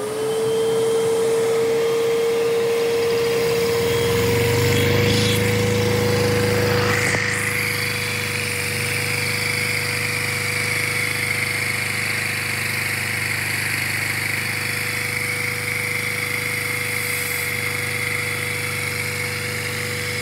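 A vacuum cleaner motor running, drawing air through a Lego inline two-cylinder vacuum engine that drives a tractor; its whine climbs as the motor spins up at the very start, then holds steady.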